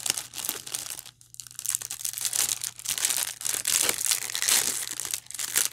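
Foil snack wrapper crinkling as it is opened by hand, a dense run of crackles with a brief lull about a second in.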